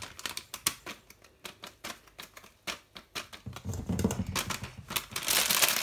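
Plastic cookie-mix packet crackling in a rapid run of small clicks as it is shaken out over a mixing bowl. Near the end it is scrunched up, giving a dense crinkling.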